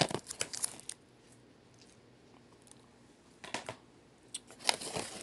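Shrink-wrapped DVD cases and a cardboard mailer being handled: short rustles and clicks in the first second, a few more about three and a half seconds in, and crinkling near the end.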